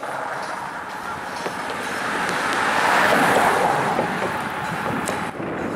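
A car driving past on the bridge roadway: tyre and road noise that swells to a peak about halfway through, then fades.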